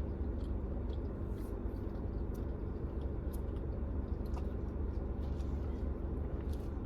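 Steady low rumble and hum of an idling car, heard from inside the cabin, with a few faint clicks.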